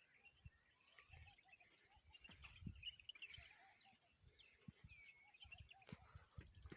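Faint birdsong: many small birds chirping, with a few quick trills, mixed with scattered low thumps.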